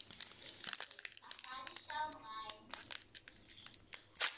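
Crinkling and crackling of a trading-card booster pack wrapper being handled, in quick irregular crackles, with one sharper, louder crackle near the end.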